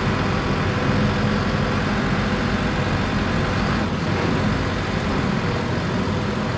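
City bus engine running as the bus drives, a steady hum heard from inside the passenger cabin.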